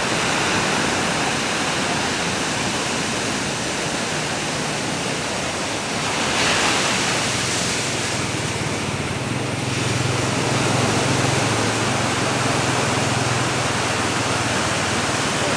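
Ocean surf breaking and washing onto the shore as a steady rushing noise, swelling a little about six seconds in.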